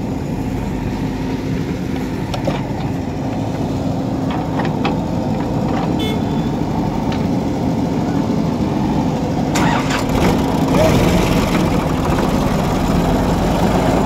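Diesel engines of a tractor and a backhoe loader running steadily with a low hum, growing louder and rougher about ten seconds in.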